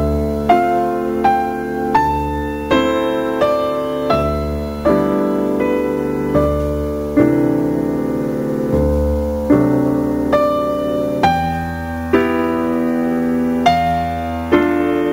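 Solo piano music at a slow, even pace: a note or chord is struck about every three-quarters of a second and rings on over sustained bass notes.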